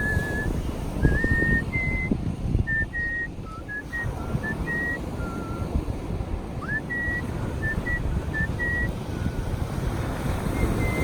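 Artistic whistling: one person whistling a melody in clear, pure high notes, some held and some short, with a quick upward slide into a note about seven seconds in. A steady low rumble of outdoor noise runs underneath.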